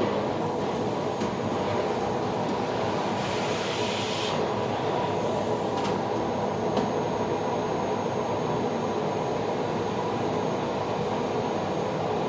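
Vacuum cleaner running steadily, with a brief higher hiss about three seconds in and a few light clicks.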